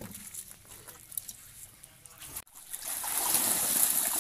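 Pond water splashing and churning, rising to a steady rush about two and a half seconds in, after a quieter stretch with a few faint clicks.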